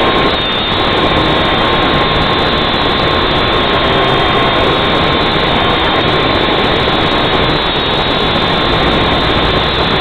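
Syma X5C-1 quadcopter's brushed motors and propellers running in flight: a loud, steady whine with a thin held tone, picked up by the drone's own onboard camera microphone. Strong wind rumbles on the microphone underneath.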